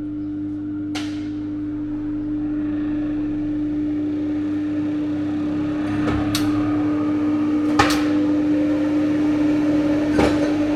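Three-phase electric motor running with a steady electrical hum, a fainter whine rising slowly in pitch over the second half, and a few sharp clicks.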